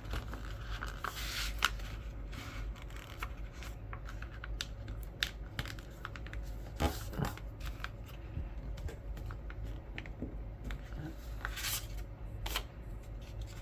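A sheet of paper being folded and creased by hand: rustling and crinkling, with many small scattered crackles and a few louder rustles.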